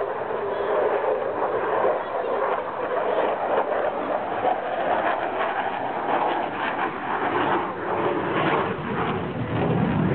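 Sukhoi Su-27UBM fighter jet's twin turbofan engines heard in flight, a steady rushing jet noise that swells and eases a little.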